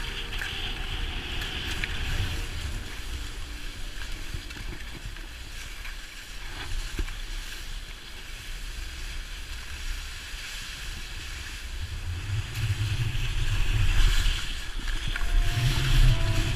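Wind rushing and buffeting on a GoPro Hero 3's microphone with the hiss of skis sliding through snow during a downhill run; the wind rumble grows louder in the last few seconds.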